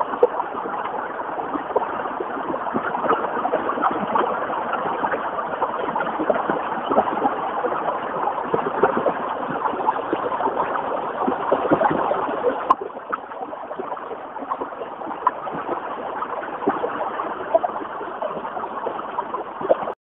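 Small stream of water cascading and splashing down between rock boulders, a steady close-up rush. A single click about two-thirds through, after which the rush is a little quieter.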